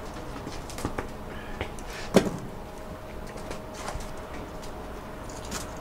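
Kitchen clatter: scattered knocks and clicks of utensils and cookware, with one louder knock about two seconds in, over a steady hum of kitchen equipment.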